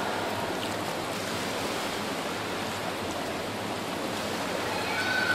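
Steady splashing and lapping of pool water around a child swimming breaststroke.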